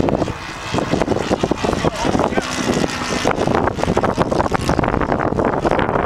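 Strong wind buffeting the microphone in irregular gusts.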